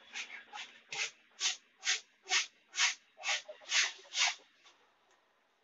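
Rhythmic rubbing strokes at an even pace of about two a second, around ten in all, stopping near the end.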